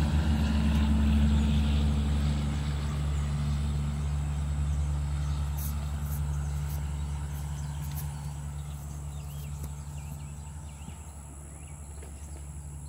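Steady low hum of an idling engine, slowly fading.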